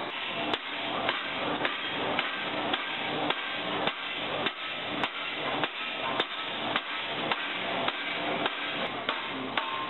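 Hammer blows on the blade of a metal impeller clamped in a repair fixture, reshaping it during restoration. The strikes come evenly, a little under two a second, over a steady hiss.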